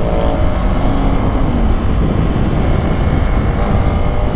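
KTM Duke 390's single-cylinder engine pulling steadily in third gear as the motorcycle accelerates.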